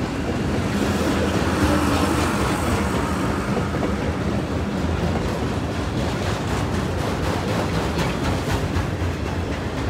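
Loaded autorack freight cars rolling past: a steady rumble and rattle of steel wheels on the rails, with faint repeated clicks in the second half.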